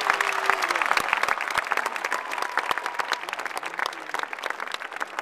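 Large stadium crowd applauding, a dense patter of many hands clapping, loudest at the start and easing off slightly toward the end.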